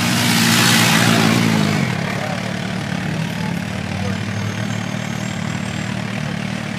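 A motorcycle passes close by at low speed, its engine loud for the first two seconds before dropping away. Then a second-generation Ford Focus RS's turbocharged five-cylinder engine runs low and steady as the car rolls slowly forward.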